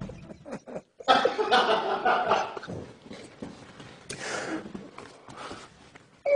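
A man's stifled laughter: irregular breathy bursts and gasps with short pauses between them, as he tries to hold it in.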